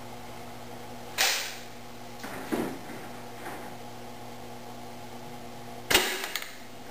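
Crosman Phantom .177 break-barrel spring air rifle fired twice, about a second in and again near the end, each a sharp crack with a short decay, the second the louder. Softer clicks come in between, over a steady low hum.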